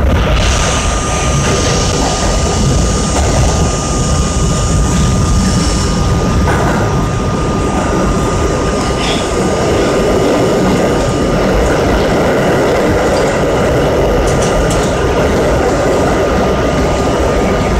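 An R32 subway car running through a tunnel, heard from inside the car: a loud, steady rumble of wheels on rail and traction motors, with a thin steady whine throughout. The train is pulling into a station near the end.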